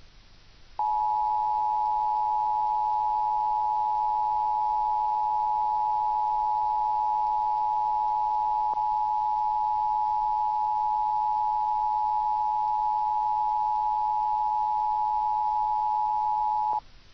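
Emergency broadcast attention signal: a steady multi-tone alert tone that starts about a second in, holds level with a tiny click about halfway, and cuts off suddenly near the end.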